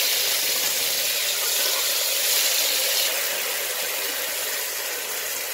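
Sliced onions sizzling in hot oil in an aluminium pressure cooker: a steady frying hiss that eases slightly about three seconds in.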